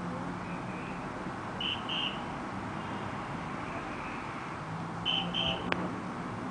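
Steady background rumble of the station with two pairs of short high beeps, one pair about two seconds in and another near the end, followed by a single sharp click.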